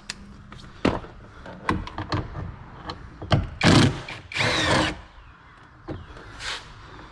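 Clicks of a tool being handled, then a cordless driver with a T27 Torx bit spinning in short runs about halfway through, its motor pitch rising and falling as it backs out the bolts holding the side mirror.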